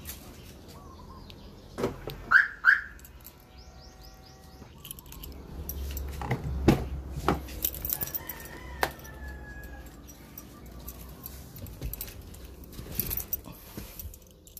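Two short high chirps about two seconds in, then clicks and knocks as the driver's door of a Mitsubishi Montero Sport is opened and the driver climbs in. There is more door handling and a knock near the end; the engine is not yet running.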